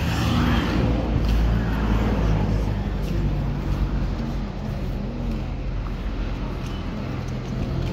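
Motor vehicle engine idling with a steady low hum, amid street traffic noise.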